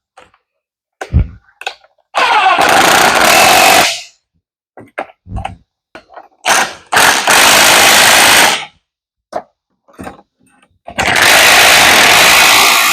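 Impact wrench (rattle gun) hammering in three bursts of about two seconds each, winding in the spring compressors on a strut coil spring, with a couple of short knocks between the bursts.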